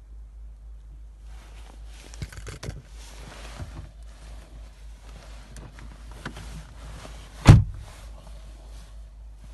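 Rustling and small clicks of handling inside a car cabin, starting about a second in, with one loud thump about three-quarters through, over a steady low hum.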